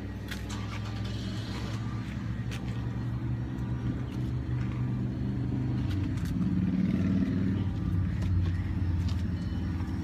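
Car engine running steadily, getting louder with its note rising about six seconds in.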